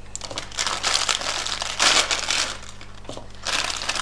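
Plastic instant-noodle packet crinkling in three bursts as it is handled and the dry noodles are taken out.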